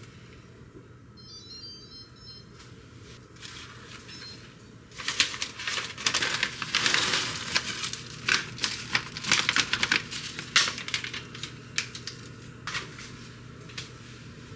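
Crinkling and rustling of a paper packet as dried medicinal herbs are shaken out of it into a pan of water. It comes as a dense run of crackles from about five seconds in, then thins to scattered crackles.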